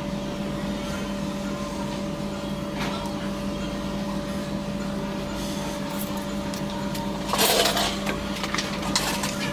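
Steady hum of a small electric motor running at a constant speed, with a brief scraping hiss about seven seconds in.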